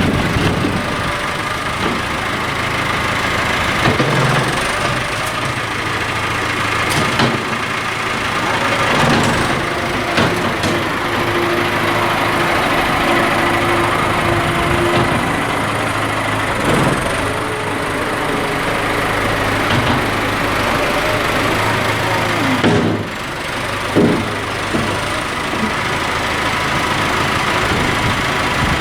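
Farm tractor engine running steadily while its front loader works, with a few short knocks and clunks along the way.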